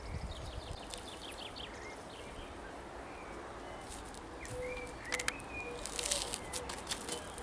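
Birds chirping: a quick series of high, falling chirps in the first second or so, then a few gliding calls and a soft, repeated low note. From about five seconds in there are several sharp clicks and rustles.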